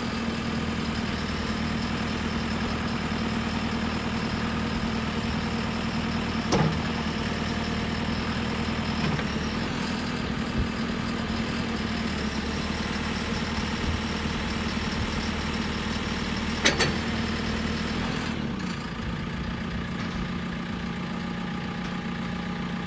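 JCB 3CX backhoe loader's diesel engine running steadily, with a few short knocks. About three-quarters of the way through, the engine settles to a slightly lower speed.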